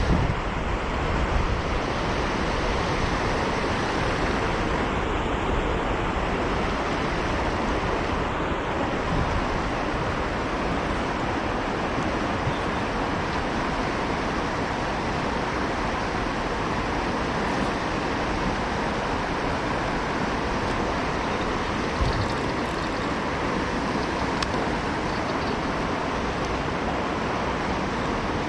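River water rushing steadily, an even noise without breaks or changes.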